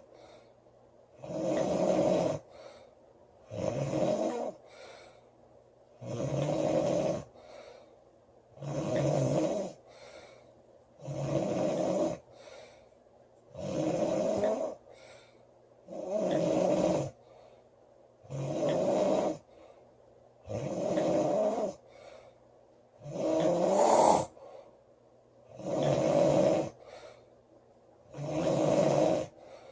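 A woman snoring loudly in her sleep, one rasping snore every two to three seconds in a steady rhythm. Each snore is followed by a faint breath.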